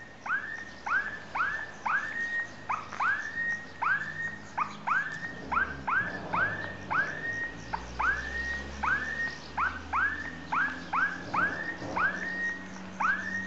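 A long series of short, squeaky calls from an unseen animal, each rising quickly and then holding, about two a second at slightly uneven intervals, over a faint low hum.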